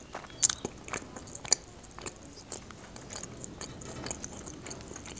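Close-miked chewing of a mouthful of Caesar salad, with crisp crunches roughly twice a second, sharpest in the first couple of seconds.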